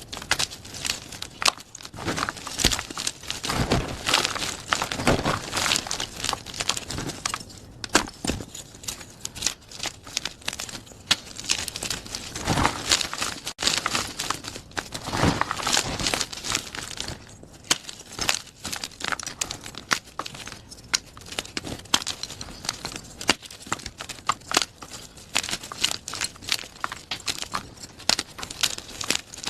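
Blocks of plain gym chalk being crushed and crumbled, a continuous run of dense, irregular crunchy crackles.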